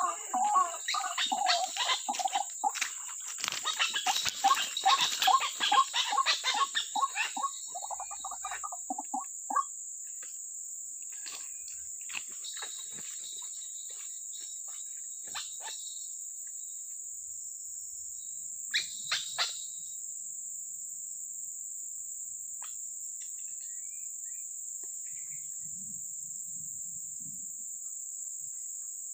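White-breasted waterhen calls, a rapid run of repeated croaking notes that stops about nine seconds in. A steady high insect drone from crickets runs underneath throughout and is all that is left afterwards, along with a few soft rustles and clicks.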